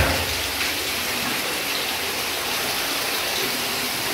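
A splash as a fish is tipped out of a landing net into the pond, followed by a steady rush of flowing water.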